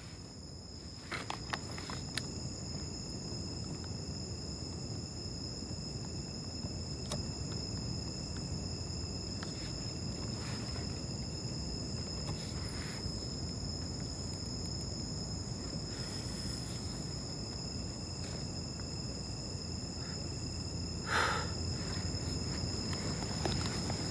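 Night insects such as crickets chirring steadily as two continuous high tones over a low rumbling background. A few faint clicks sound near the start, and a brief louder call or squeak comes about 21 seconds in.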